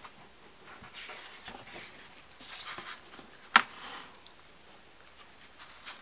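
Pages of a large-format hardcover comic album being handled and turned, a soft paper rustle, with one sharp tap about three and a half seconds in.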